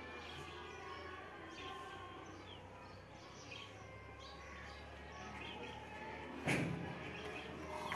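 Many small birds chirping over a steady low background hum, with one short, loud burst of noise about six and a half seconds in.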